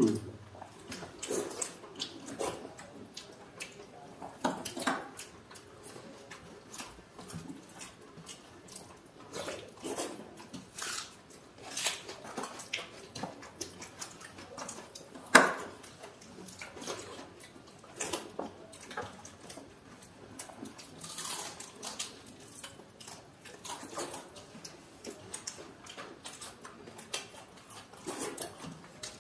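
Close-up eating sounds of two people eating watery rice by hand from steel plates: wet squelches of fingers mixing soaked rice, with mouth smacks and slurps coming as irregular small clicks, one sharper than the rest about halfway through.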